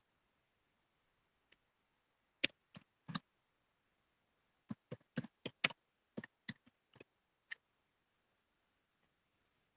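Keys clicking as someone types: three clicks, then after a short pause a quick, irregular run of about ten more.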